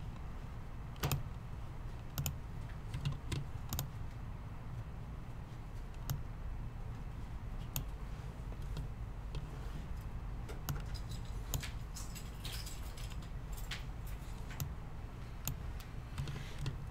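Irregular clicks of a computer keyboard and mouse, a few at a time with pauses between, over a steady low hum.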